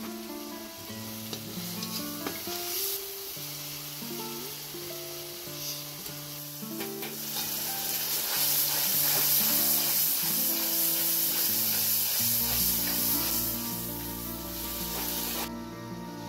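Tomato paste frying in hot oil in a wide metal pan, sizzling loudly from about seven seconds in and cutting off suddenly near the end, stirred with a metal skimmer. Soft guitar music plays underneath throughout.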